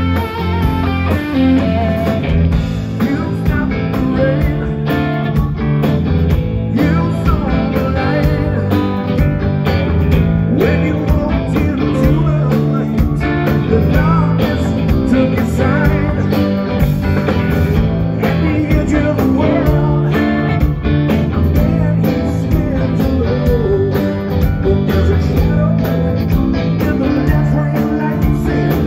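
A blues-rock band playing live, with electric guitar to the fore.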